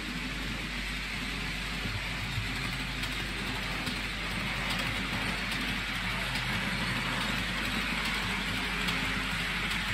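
OO gauge model train running on track: the locomotive's motor and the tank wagons' wheels make a steady whirring rumble that grows slightly louder as the train approaches.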